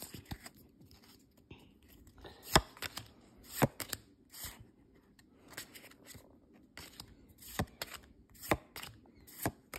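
Pokémon trading cards being flipped through one at a time: irregular crisp snaps of card against card, the sharpest about two and a half and three and a half seconds in, with soft sliding and rustling between.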